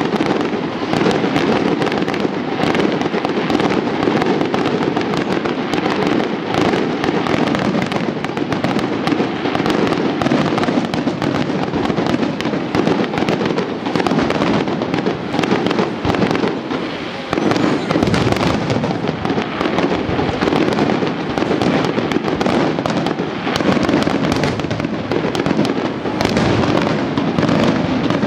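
Fireworks display: many bursts in quick succession with no pause, a dense and loud barrage.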